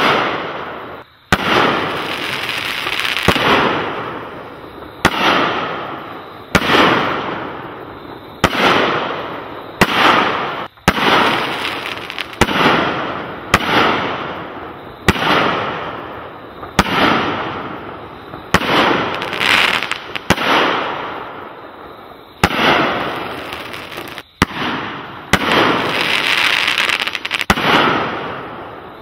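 Asia Pyro Black Knight firework firing a long string of shots, about one every second or so. Each is a sharp report followed by a noisy tail that fades over a second or two as the bursts spread.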